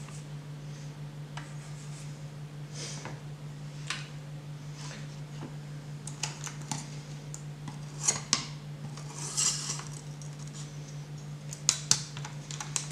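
Metal parts of a guided knife sharpener being handled: scattered clicks and taps with a brief scrape as the pocket knife is set into the sharpener's metal clamp, the sharpest clicks about eight and twelve seconds in. A steady low hum runs underneath.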